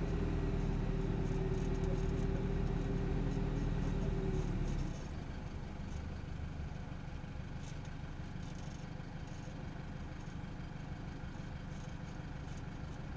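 Isuzu KB300's four-cylinder 3.0 turbo-diesel engine and stock exhaust, recorded from beneath the truck while driving: a steady drone at an even engine speed, which drops suddenly about five seconds in to a quieter, lower running sound.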